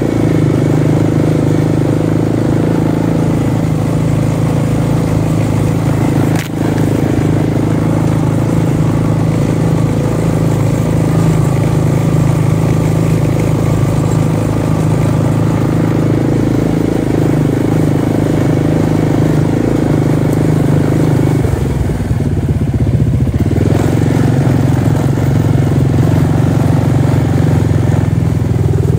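ATV engine running close by, steady and loud. Its note changes about three-quarters of the way through.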